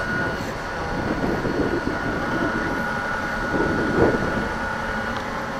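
Steady high whine of a radio-controlled model tugboat's motor over a low rumbling background, breaking off near the end.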